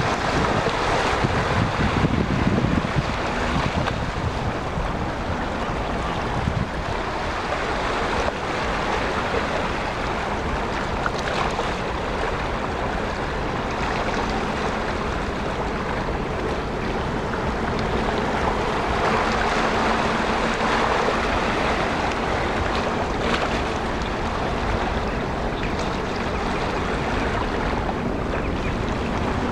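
Sea wind blowing across the microphone with small waves washing, a steady rushing noise, with gusts buffeting the microphone at the start.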